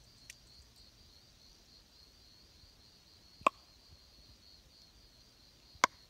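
Young sambar deer giving two short, loud honks, about two and a half seconds apart, the second a quick double. Insects keep up a steady pulsing chirr behind it.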